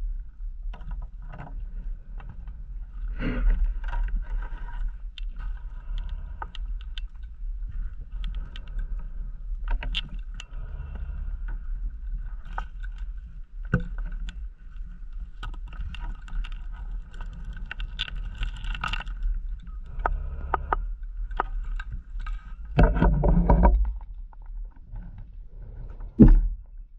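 Scuba diver's breathing heard underwater through the camera housing: a steady low rumble with scattered clicks and a faint steady whine, broken by rushes of exhaled bubbles, a short one about three seconds in, a longer, louder one about 23 seconds in and a brief sharp one near the end.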